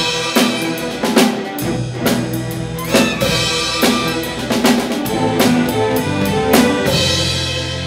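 A student string orchestra of violins, cellos and double basses plays a rock arrangement with a drum kit hitting on a steady beat, about once a second. Near the end the drum hits stop and a held string chord carries on, beginning to fade.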